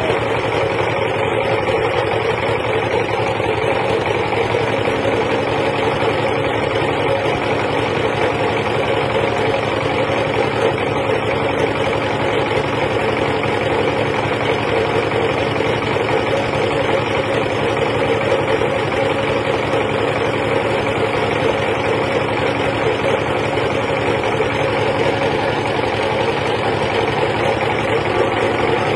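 Light aircraft's propeller engine running steadily while the plane stands on the ground, a continuous even drone with no let-up.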